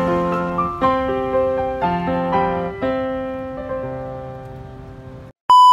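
Background piano music playing slow sustained chords, growing quieter until it stops. Just before the end, a loud, steady high-pitched beep starts.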